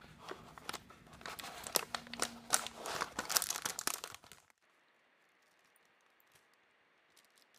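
Plastic LEGO polybag crinkling and crackling as it is torn open by hand, a quick run of crackles for about four seconds that stops abruptly, leaving near silence.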